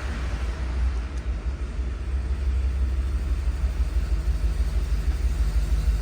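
Factory Ford gas V8 pickup engine idling with a steady low rumble.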